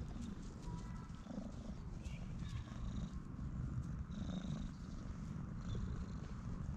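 Domestic cat purring loudly while being stroked, a steady low rumble.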